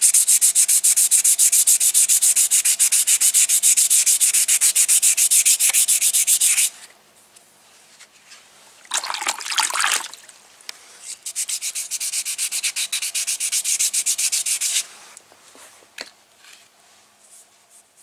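400-grit wet sandpaper rubbed by hand over a primed alloy wheel: quick, even back-and-forth sanding strokes. They stop, the paper is swished in a bucket of water about nine seconds in, and then a second run of strokes follows that ends near the end.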